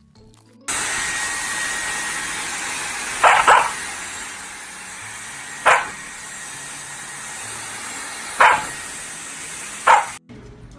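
Samoyed puppy barking four times, short barks a couple of seconds apart, over a steady hiss that starts about a second in and stops just before the end.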